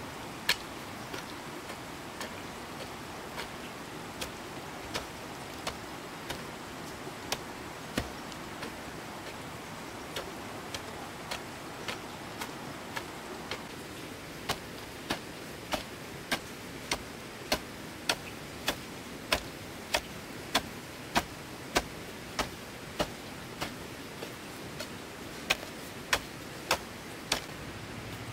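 A long run of sharp, crisp clicks, roughly one or two a second at slightly uneven spacing, over a steady background hiss.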